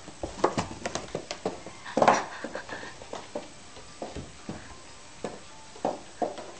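Irregular clicks and light knocks of a cat scrabbling and bumping about on a tiled floor with a small box stuck on its head, with a louder knock about two seconds in.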